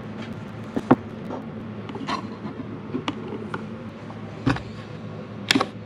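Steady low hum with about five sharp clicks and knocks, the loudest about a second in, from handling a heat-set insert press and a 3D-printed plastic part.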